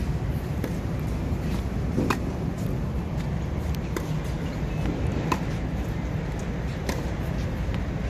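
Tennis ball struck by racquets and bouncing on a hard court during a baseline rally: sharp pops about every one to two seconds, the racquet hits loudest, over a steady low rumble.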